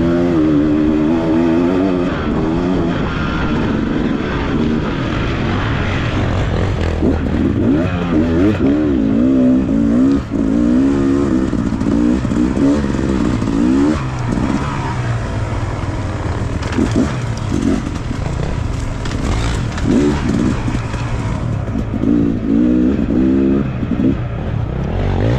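Off-road motorcycle engine being ridden, its pitch rising and falling again and again as the throttle is opened and closed.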